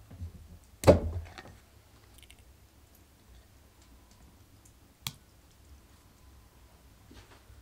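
Glass jar being handled on a table: a sharp knock about a second in that rings briefly, and a single light click about five seconds in.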